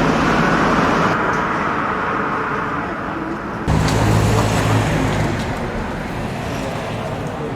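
Road traffic passing on the street. About four seconds in, a steady low engine hum starts suddenly.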